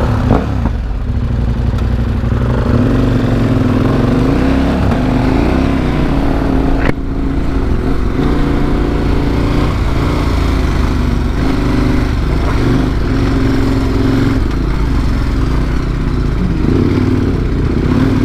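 Large adventure motorcycle heard from on board while riding a rutted sandy track: the engine runs continuously, its revs rising and falling with the throttle, with a single sharp knock about seven seconds in.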